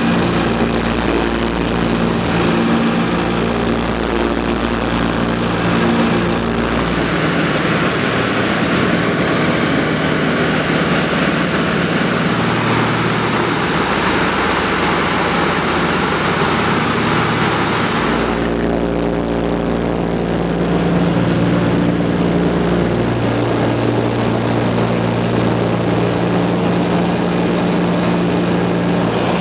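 Douglas DC-3's twin radial piston engines and propellers droning steadily in flight, heard from inside the aircraft. From about 7 s to about 18 s the engine tones are fainter under a louder rush of air, which cuts off abruptly.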